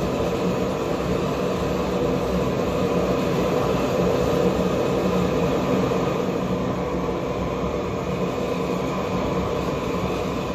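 Propane torch burning with a steady rushing roar, heating a branding iron for marking tools.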